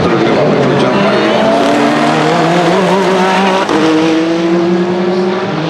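Several Hypercar-class endurance prototype race cars running on track, their engine notes overlapping, with pitches climbing as they accelerate.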